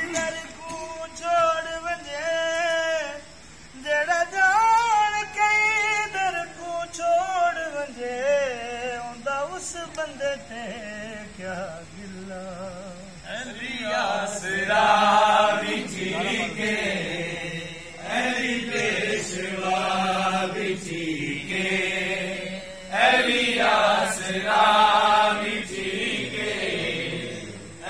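Punjabi Sufi devotional singing. A solo voice holds long notes, wavering and ornamented with heavy vibrato, for the first ten seconds or so. From about 13 seconds in, a fuller group of voices sings repeated phrases.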